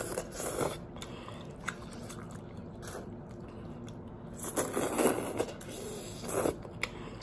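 Slurping and chewing spicy instant noodles, with a loud slurp at the start and two more about four and a half and six and a half seconds in.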